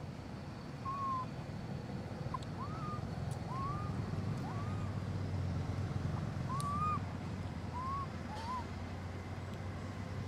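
Macaque coo calls: a series of about eight short, clear calls, each rising then falling in pitch, spaced irregularly about a second apart, over a steady low rumble.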